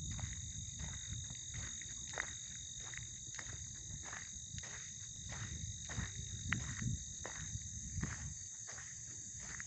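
Steady high-pitched chorus of crickets or other singing insects, with walking footsteps ticking underneath, two or three steps a second.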